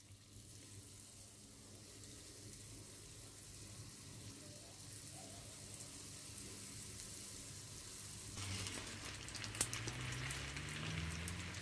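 Deep seed oil in a frying pan sizzling faintly, then turning markedly louder about eight seconds in as churro dough goes into the hot oil, with a few sharp pops after that.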